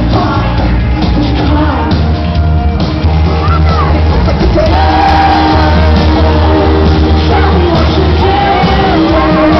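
Live pop-rock band playing loud through a hall's PA, the lead vocal over keyboard synth and electric guitar, with fans near the recording device singing and shouting along.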